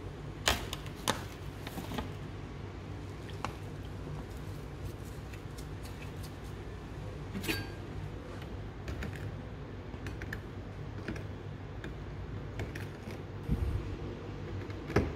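Scattered light clicks and knocks of gloved hands handling tools and a plastic bowl of oxalic acid rust-removal solution, over a steady low hum. Near the end there is a low thump and a sharp knock as a rusty 1/4" ratchet is set into the bowl.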